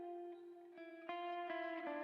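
Background music: a plucked guitar playing single notes in a melody.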